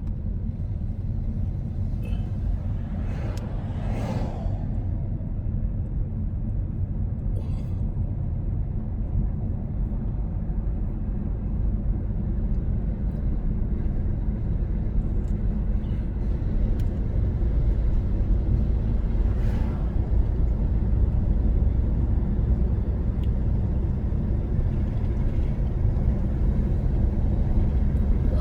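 Car road noise from inside the moving vehicle: a steady low rumble of engine and tyres that slowly grows louder, with two brief swells, about four seconds in and again around twenty seconds.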